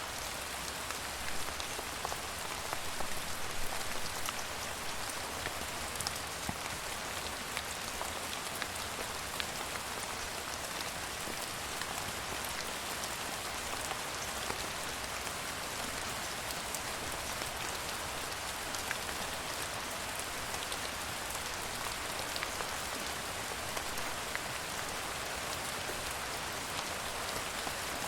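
Steady rain: an even hiss of rainfall with many small drop ticks scattered through it.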